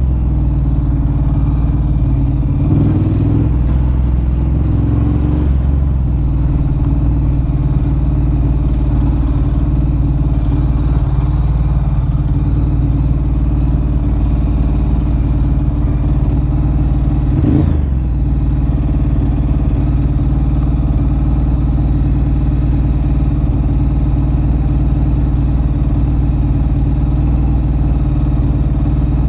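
2013 Ducati Monster 1100 EVO's air-cooled L-twin engine running at steady revs through a Termignoni exhaust. The note wavers a few seconds in and dips briefly about halfway through.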